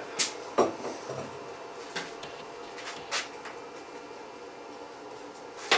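A handful of short, sharp clicks and knocks of tools and fittings being handled on an engine block, spaced a second or more apart, the loudest near the end, over a faint steady hum.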